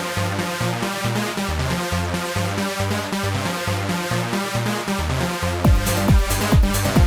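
Instrumental intro of a mid-90s eurodance track: a pulsing synth bass riff with electronic chords, joined about five and a half seconds in by a steady kick drum at about two beats a second.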